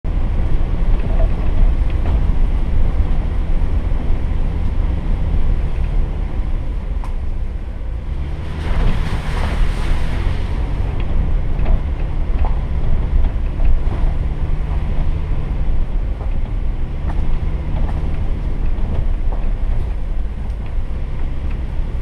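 Jeep driving slowly over a rough dirt trail: a steady low engine and drivetrain rumble with scattered light knocks, and a brief rush of noise about nine seconds in.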